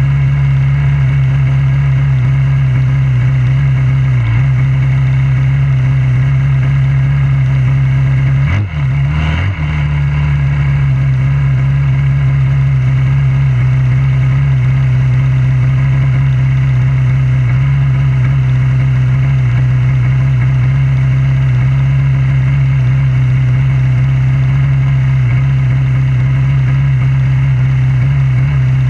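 Junior dragster's single-cylinder engine idling steadily while the car waits on the start line. About nine seconds in the idle briefly sags and recovers twice.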